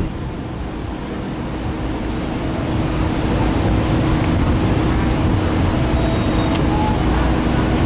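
Cruise ship machinery running: a steady low rumble with a constant hum, mixed with wind on the microphone.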